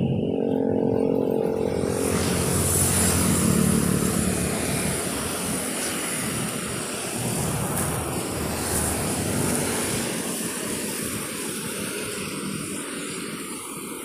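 Road traffic on a city street. A vehicle engine drones for about the first two seconds, then a steady rushing hiss of passing traffic slowly fades.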